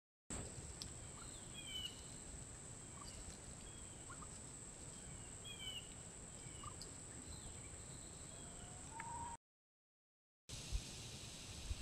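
A flock of wild turkeys feeding, giving scattered short high chirping calls, several of them falling in pitch, with one longer rising note near the end, over a steady high hiss. The sound cuts out for about a second, then a quieter stretch follows with two soft thumps.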